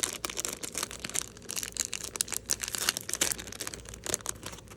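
Packaging crinkling and rustling in quick irregular crackles as it is handled and pulled open by hand.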